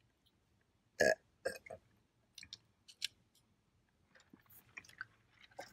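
A woman's short burp about a second in, followed by a few fainter mouth clicks and smacks while eating.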